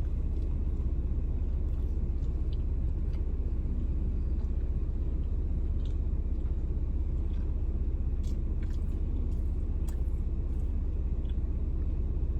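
Car engine idling, heard from inside the cabin as a steady low rumble, with a few faint small clicks scattered through it.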